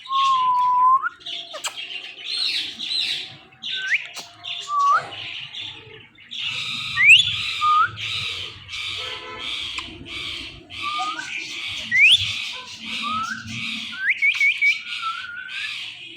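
Indian ringneck parrots calling: a held whistled note that rises at its end, then from about six seconds in a steady run of harsh, rapidly repeated squawks with sharp rising whistles mixed through them.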